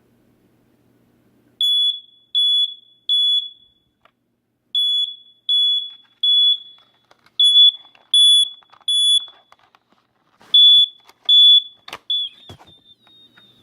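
Universal SS-2795 smoke alarm sounding under test: a loud high beep in groups of three with a pause between groups, the temporal-3 alarm pattern. After three full groups the fourth gives two beeps, then a stuttering short one and a faint lingering tone, with a few clicks of handling.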